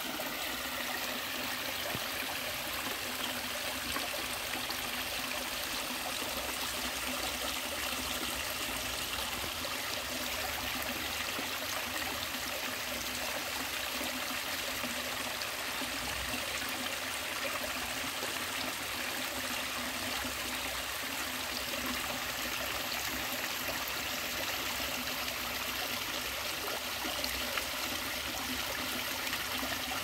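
A small rocky stream, its water trickling and splashing steadily over a rock ledge into a shallow pool.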